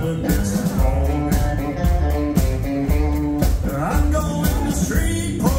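Live country band playing: upright bass, drums, electric lead guitar and pedal steel guitar over a steady beat, with a rising slide about two-thirds of the way through.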